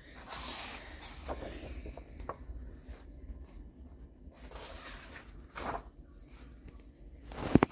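Paper rustling and handling noises in short separate bursts, with a few sharp clicks near the end.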